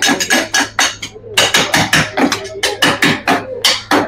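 Two metal spatulas chopping and clanking against a frosted steel cold plate as ice cream is mixed for rolled ice cream: rapid, rhythmic clacks about four to five a second, with a short pause a little over a second in.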